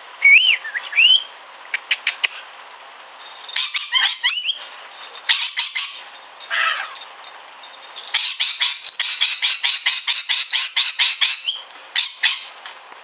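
Rainbow lorikeet calling: a few short whistled glides at the start, then bursts of rapid, high-pitched chattering, with a long fast run of chirps in the second half.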